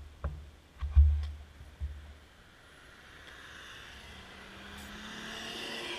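Car passing close across the intersection, its tyre and engine noise building over the last few seconds. A few low thumps on the microphone in the first two seconds, the loudest about a second in.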